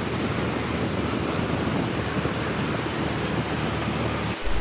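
Steady rushing wind on the microphone of a moving motorcycle, with road and engine noise underneath; it cuts off suddenly near the end.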